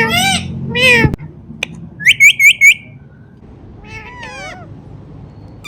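Indian ringneck parrot mimicking a cat's meow twice, then giving four loud, sharp squawks in quick succession about two seconds in, followed by a softer warbling chatter of gliding chirps.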